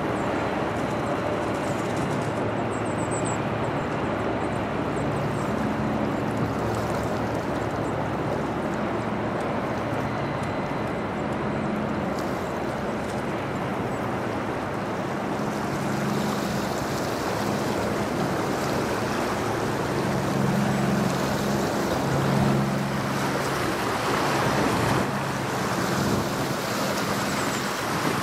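Steady wash of water and wind as a laden Great Lakes bulk freighter passes. A low engine drone from the ship comes and goes under it and swells for a few seconds near the end.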